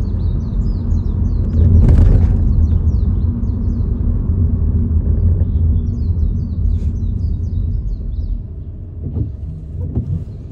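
Low rumble of a car driving along the road, heard from inside; it dies down near the end as the car slows up behind queuing traffic. Birds chirp over it, and a brief louder rush comes about two seconds in.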